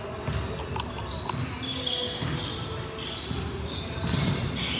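Basketball game play in a gym: a ball bouncing on the court, a few sharp knocks, and short high squeaks of shoes on the floor, over distant voices in the hall.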